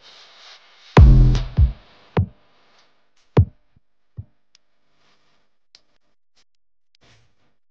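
Electronic music: a few heavy drum-machine hits with deep bass, the loudest about a second in, then single hits that grow fainter and thin out to faint ticks.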